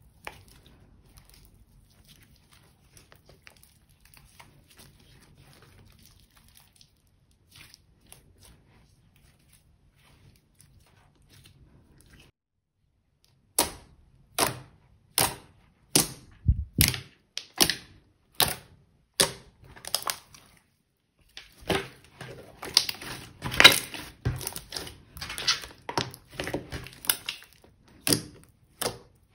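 Pink slime with makeup eyeshadow mixed in, worked by hand. It stretches quietly at first. About halfway through, fingertips pressing into it give a run of sharp wet clicks and pops, nearly two a second, which turn into denser crackling squelches as it is kneaded near the end.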